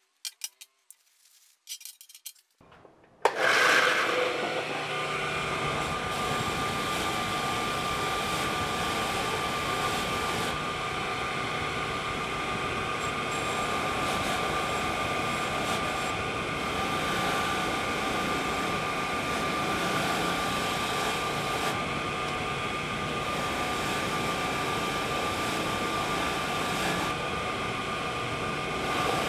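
A few light clicks of metal parts being handled, then from about three seconds in a bench grinder's wire wheel runs loud and steady with a constant whine, brushing stripper-softened paint off cast-iron vise parts held against it.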